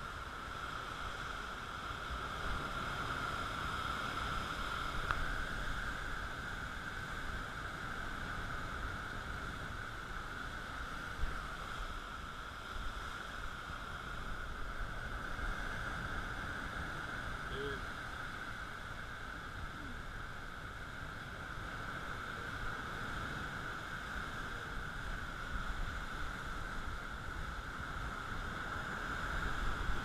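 Small quadcopter drone's motors and propellers humming steadily at a constant pitch, over the rush of surf churning among rocks.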